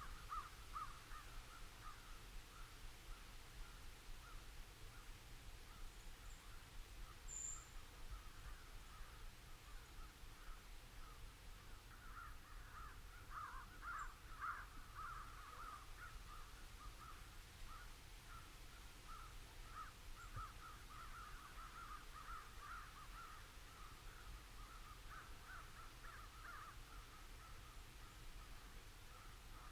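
Faint chorus of many birds calling at once, short calls overlapping without pause and busiest about halfway through, with a single high chirp from a small bird about seven seconds in.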